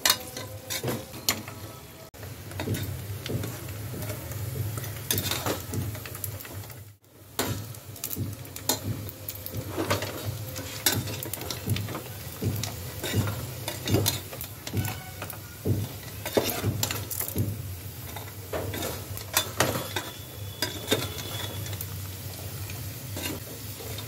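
Mutton pieces frying in a pressure cooker, stirred with a perforated metal skimmer: repeated scrapes and clinks of the spoon against the pot over sizzling. A steady low hum runs beneath, and there is a brief break about seven seconds in.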